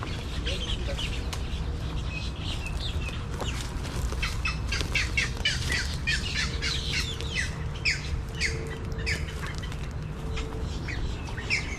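Birds calling in a rapid run of short, sharp squawking chirps, thickest through the middle, over a steady low rumble.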